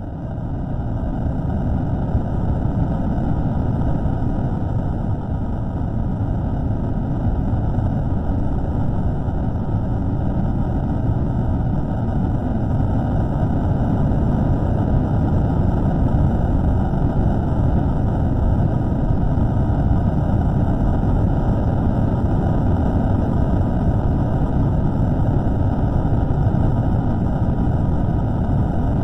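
A steady, loud, low rumbling noise with no clear tone or rhythm, from a slowed-down microphone recording, swelling up over the first two seconds and then holding level.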